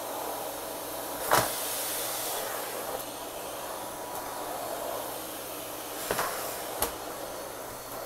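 Miele Classic canister vacuum cleaner running steadily as its plain suction floor head, with no spinning brush, is pushed over a thick rug. Three sharp knocks break through: the loudest a little over a second in, two more near the end.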